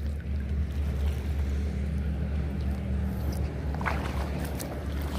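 Steady low drone of an engine running at constant speed, with no change in pitch.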